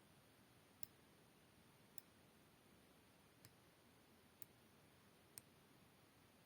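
Near silence: faint room tone with five short, sharp clicks roughly a second apart.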